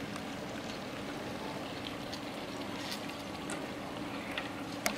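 Steady outdoor background noise with a faint low hum and a few faint clicks in the second half.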